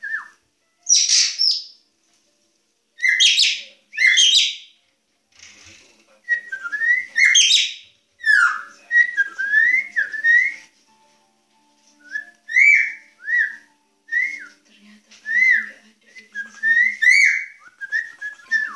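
Caged drongo singing: strings of short whistled notes that slide up and down, mixed with a few harsher, noisier notes, in phrases broken by brief pauses.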